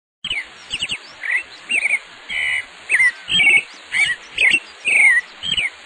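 Birdsong: short, high, whistled chirps that glide up and down, repeating about two or three times a second.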